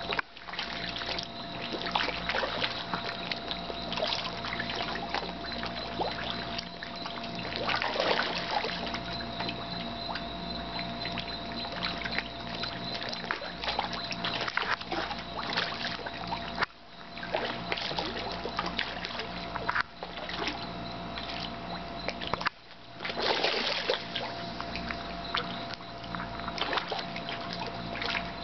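Catfish splashing at the water surface as they feed on floating cat food pellets: a continuous run of small, irregular splashes over a steady hum.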